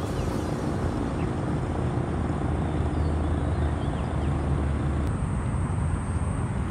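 Outdoor ambience: a steady low rumble of distant traffic with a few faint bird chirps, and a thin high whine joining about five seconds in.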